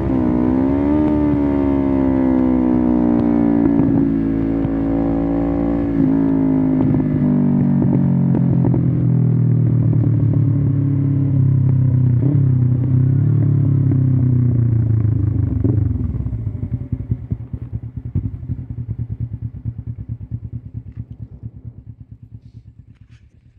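1993 Suzuki GS500E's air-cooled parallel-twin engine running through a Takkoni slip-on exhaust with its dB-killer removed, heard from the saddle while riding. The revs rise briefly about a second in, then fall in steps as the rider comes off the throttle, settling into a lower steady run before fading out over the last several seconds.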